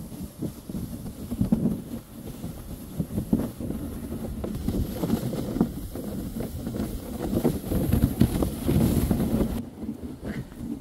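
Sled being towed through deep powder snow, heard from on board: it slides and scrapes over the snow in an uneven run of small bumps and knocks, with the tower's footsteps crunching ahead and wind on the microphone.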